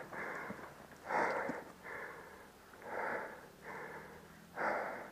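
Airsoft player's heavy breathing, close and steady, with short breaths about once a second, alternating stronger and weaker.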